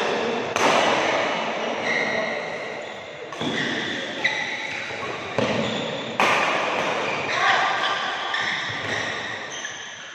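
Badminton rally: rackets striking the shuttlecock with sharp cracks about once a second, each hit echoing in a large hall, with short high squeaks of court shoes on the mat between hits.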